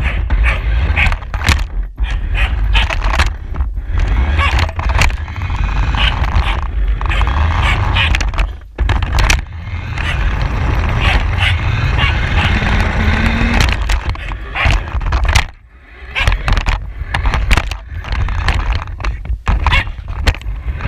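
Radio-controlled car driving, heard from a camera mounted on it: a steady rumble from its wheels and drivetrain, with frequent knocks, rattles and scrapes. It goes briefly quieter twice, once a little under halfway through and again about three-quarters of the way in.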